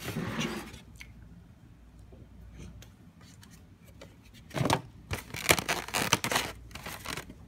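Foam takeout box and a plastic bag being handled close by, making scraping and crinkling noises. There is a burst at the start, a quiet stretch, then a run of crinkles and scrapes from about halfway through.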